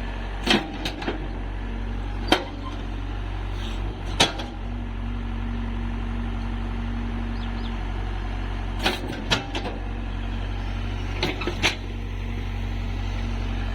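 An engine running steadily with a low hum. Sharp knocks or clanks come at irregular intervals, about seven in all, some in close pairs.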